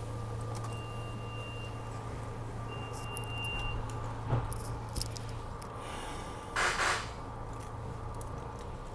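Steady low electrical hum inside a SEPTA Regional Rail passenger car, with a faint high tone that sounds twice, a few light clicks, and a short hiss about two-thirds of the way through.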